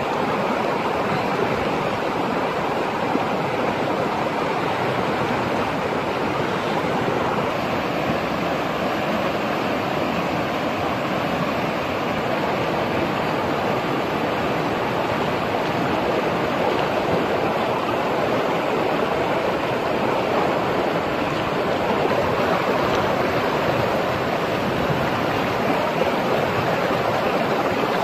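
Fast-flowing river water rushing over rocks: a steady, even rush of shallow rapids that does not let up.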